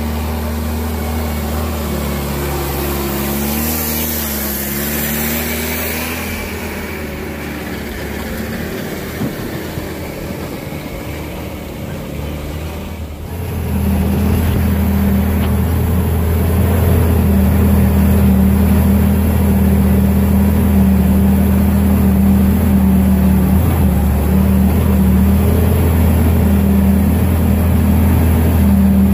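Homemade tractor's Golf 3 1.9 TDI diesel engine running steadily under load while pulling a three-furrow plough through the soil. About halfway through it gets louder and steadier, heard from the driver's seat.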